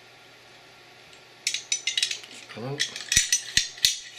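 Metal pistol parts clinking and clicking as they are handled and set down on a hard surface, with three sharp knocks near the end.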